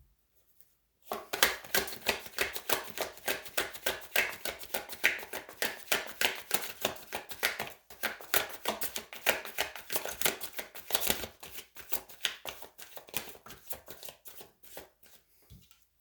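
Tarot deck being shuffled by hand: a dense run of quick card clicks and flutters that starts about a second in, breaks off briefly about halfway, and stops near the end.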